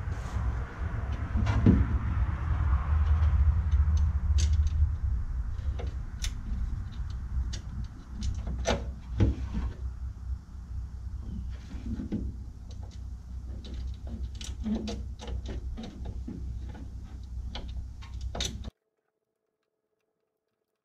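Scattered clicks, knocks and scraping of gloved hands and parts working inside a car's front wheel well, fitting the front bumper's rubber isolator mount, over a low rumble. The sound stops abruptly near the end.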